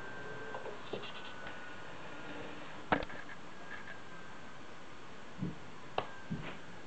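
A few light keystroke clicks from typing on a laptop keyboard, with one sharper, louder click about three seconds in, over a faint steady hum.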